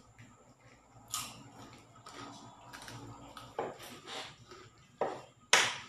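Boiled balut eggshells being cracked and peeled by hand, with eating noises: scattered sharp clicks and cracks, a few louder ones in the second half, the loudest near the end.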